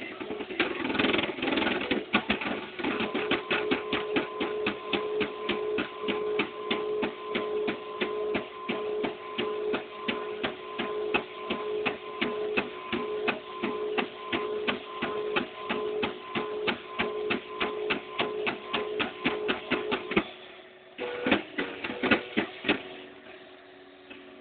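Desktop 3D printer at work: its stepper motors whine steadily under a fast run of even ticks, several a second, as the print head moves. The motion stops about twenty seconds in, and a few scattered ticks follow.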